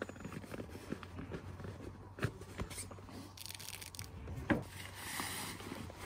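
Camping gear being handled and packed: rustling and rubbing of fabric, with two light knocks about two and four and a half seconds in and a louder rustle around five seconds.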